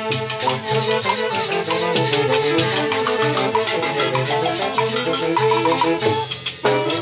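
A street band of saxophones, trumpet, harp, timbales and a metal güiro scraper playing a lively dance tune, with a short break about six seconds in.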